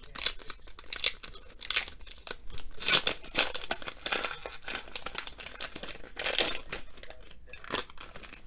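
Irregular crinkling and tearing of a foil trading-card pack wrapper as it is torn open, with the loudest rustles around three seconds in and again near six and a half seconds.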